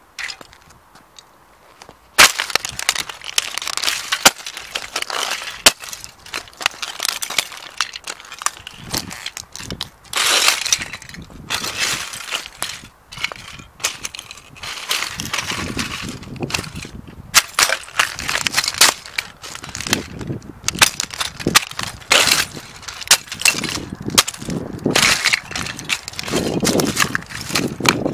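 Dr. Martens steel-toe boots stamping and grinding on the broken plastic of a toy tram on asphalt: repeated crunching, cracking and scraping of plastic shards, starting about two seconds in.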